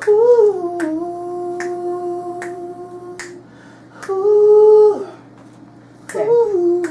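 A singer holds long wordless notes: one dips slightly in pitch and holds for about three seconds, a shorter, higher one comes about four seconds in, and another starts near the end. Finger snaps keep time under the voice, about one every 0.8 seconds.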